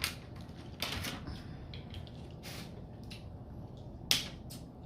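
Close-up eating sounds: a scattered series of sharp cracks and clicks, the loudest about four seconds in.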